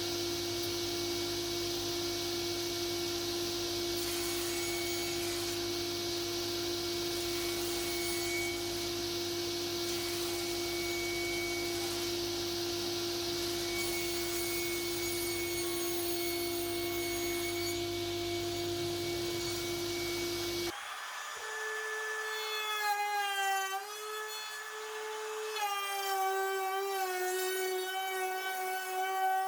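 A power tool running steadily on wood, with a constant motor hum under the noise of the cut. About two-thirds of the way through it stops abruptly, and a wavering, gliding pitched tone with several overtones takes over.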